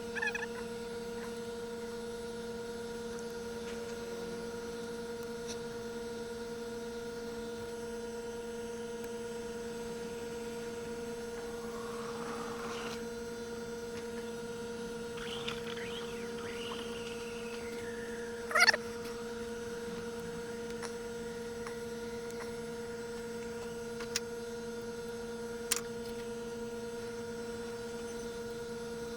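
A steady electrical hum. A few faint gliding sounds come in the middle, a short sharp sound about two-thirds of the way through, and two small clicks near the end.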